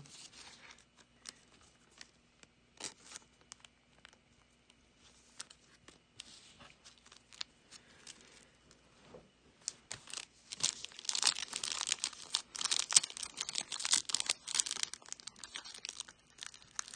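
Faint clicks as trading cards are handled. About ten seconds in, a foil Panini Select card pack wrapper is torn open and crinkled, a dense crackling that fades near the end.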